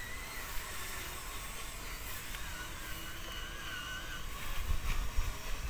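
Small electric motor of a radio-controlled model construction vehicle whining, its pitch wavering up and down as it works. Low thumps come in near the end.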